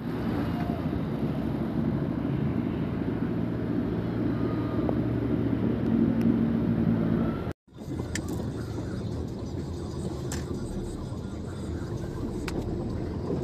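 Engine running steadily as vehicles drive through deep flood water, loudest about six seconds in. The sound cuts out abruptly about halfway through and resumes as a steadier rumble with a few sharp clicks.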